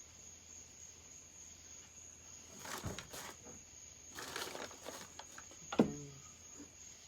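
Tools and parts being shuffled and moved about on a workbench while searching, in two short bursts of rustling, followed about six seconds in by a sharp knock of a hard object set down, with a brief ringing tone.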